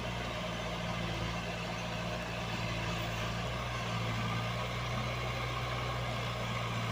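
Komatsu PC75UU mini excavator's diesel engine running with a steady low hum.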